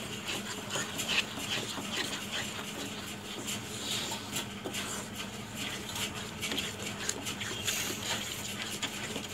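Wooden spatula stirring and scraping around a karahi of thick, sugary flour-milk mixture, in quick repeated strokes, with a steady low hum underneath.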